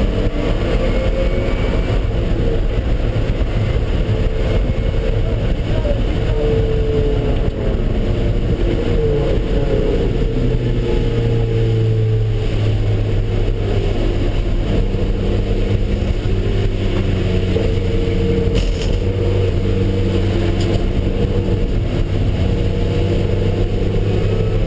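Car engine running hard at track speed, its pitch rising and falling as the revs change, over a steady rush of road and wind noise.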